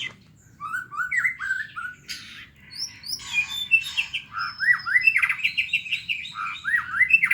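White-rumped shama singing in fighting mode: quick runs of short rising whistled notes mixed with chattering, starting shortly in, with a brief pause about two and a half seconds in. This aggressive 'tarung' song is the one a shama gives when challenging a rival.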